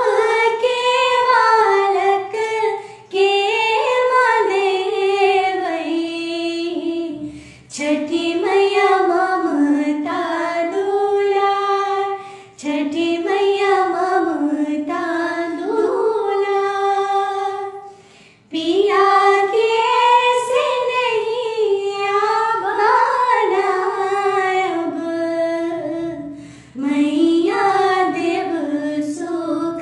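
Two women singing a Chhath devotional folk song unaccompanied, in long held phrases with short breaks between them.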